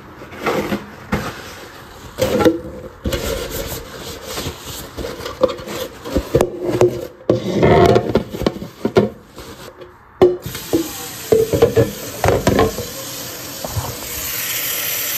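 White plastic cat drinking-fountain bowl being handled and wiped: irregular rubbing, knocks and clatter of plastic on the wooden floor. Near the end a tap starts running with a steady hiss.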